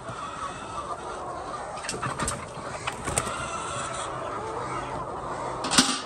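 A large flock of white laying hens clucking together in a continuous chatter, with a few sharp clicks and knocks, the loudest just before the end.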